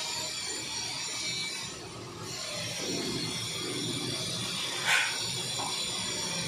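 Handling noises from an airless paint spray gun being turned over in the hands, with one sharp metallic click about five seconds in, over a steady background hum.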